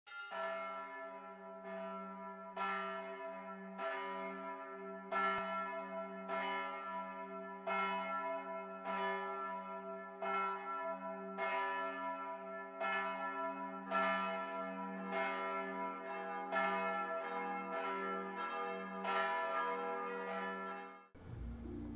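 Church bells ringing, a strike about every second, each one's ringing carrying on into the next. The ringing cuts off abruptly near the end.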